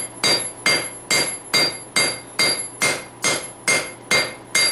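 Hand hammer striking red-hot steel on a Peter Wright anvil in a steady rhythm of about two and a half blows a second, each blow with a bright metallic ring. The bar is being drawn out to spread it in width for a froe blade.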